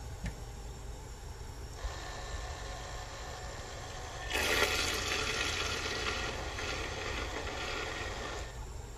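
Self-stirring mug's small motor whirring as it spins coffee and creamer into a vortex, with the swirling liquid. It starts faintly about two seconds in, gets louder about halfway through, and stops shortly before the end.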